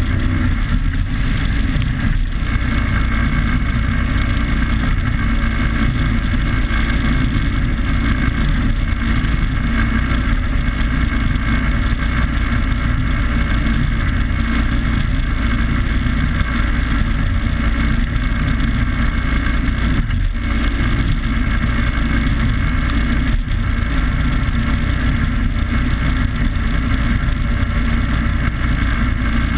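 Rigid inflatable powerboat running at speed: a steady engine drone mixed with rushing wind and spray on the microphone.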